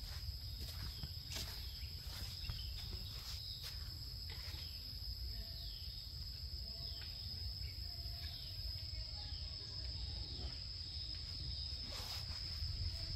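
Insects droning steadily at a high pitch, over a low rumble, with a few short falling chirps scattered through.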